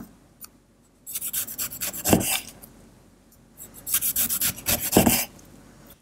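Kitchen knife sawing through a tomato in quick back-and-forth strokes, twice, each slice ending with a knock of the blade on a wooden cutting board.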